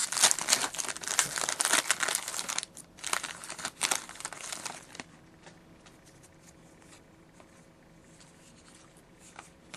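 Foil trading-card pack wrapper crinkling and tearing as packs are opened, for about five seconds with a short pause partway. It then goes quiet apart from a few faint ticks of cards being handled.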